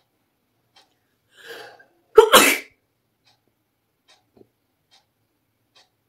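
A woman sneezing, set off by a chili held to her nose: a short breath in, then one loud sneeze about two seconds in.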